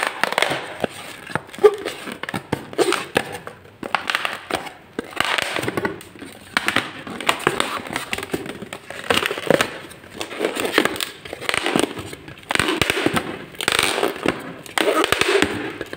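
Inflated latex twisting balloons squeaking and crackling as hands squeeze and rub them, in irregular bursts every second or two.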